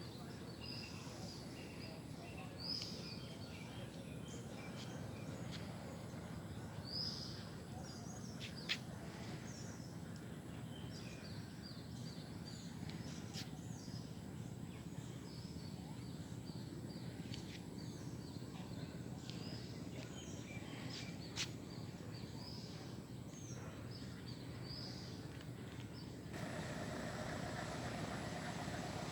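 Many small birds chirping over a steady low background rumble. About 26 seconds in, the chirps stop and give way abruptly to a louder, even noise.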